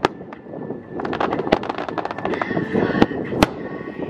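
Aerial fireworks bursting: several sharp bangs with crackling between them, the loudest bang about three and a half seconds in.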